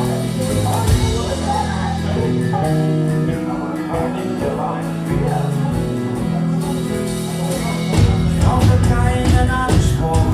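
Live folk band performing a song with singing and guitar. About eight seconds in, the music grows louder and fuller, with a heavier low end.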